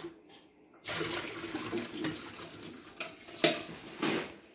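Water poured from a stainless steel saucepan through a mesh strainer into a metal sink, starting about a second in and lasting about two seconds, then two sharp knocks.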